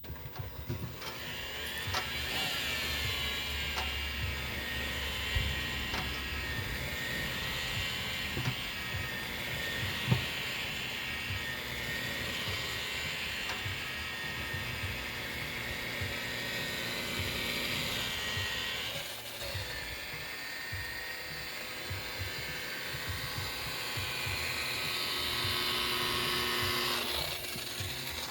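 Handheld electric power tool running with a steady high whine as it works over and scuffs up a fiberglass boat's gelcoat. Its pitch and load shift as it is pressed and moved, with a dip about two-thirds of the way in and a rise near the end.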